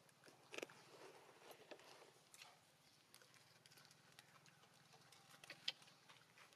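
Near silence with a few faint, sharp clicks scattered through it, the sharpest about half a second in and another about a second before the end.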